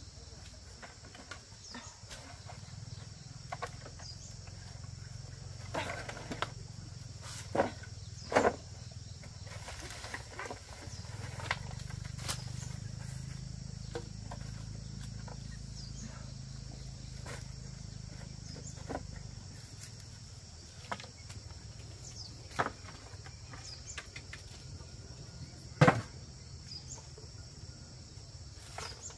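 Outdoor rural background with steady insect chirring and a low hum, broken by scattered short knocks and clicks, the loudest one near the end.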